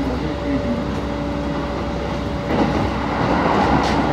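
Passenger train running, heard from inside the carriage: a steady rumble of wheels on rails with a faint hum. About two and a half seconds in it grows louder as the train crosses a bridge over a road.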